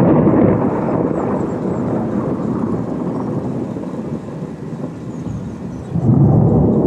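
Thunder rumbling from a close lightning strike: a loud low rolling rumble that slowly dies away, then swells again suddenly about six seconds in.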